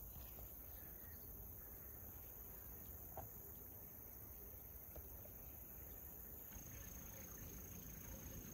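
Faint outdoor ambience: insects trilling steadily in a high band, over a low rumble, with two soft ticks about three and five seconds in.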